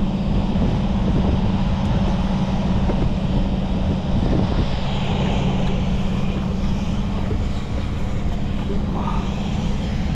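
Hangkai outboard motor running steadily at a constant low speed, its hum holding one even pitch, with wind and water noise around it.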